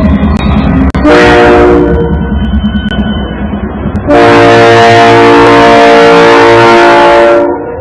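Locomotive air horn sounding a chord of several notes: a short blast about a second in, then a long blast of about three seconds starting about four seconds in. Under it runs the low, pulsing rumble of the diesel locomotive.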